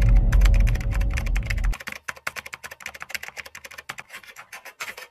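Keyboard typing sound effect: rapid clicks of keys as on-screen text is typed out, over a deep low drone that cuts off suddenly under two seconds in.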